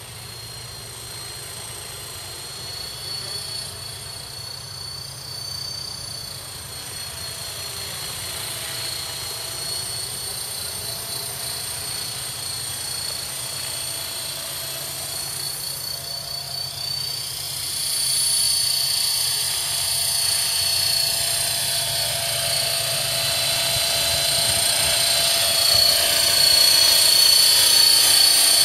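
A KDS 450 electric radio-controlled helicopter in flight: a steady high whine of motor and rotors. It grows louder as the helicopter comes down and closer, most sharply from about eighteen seconds in.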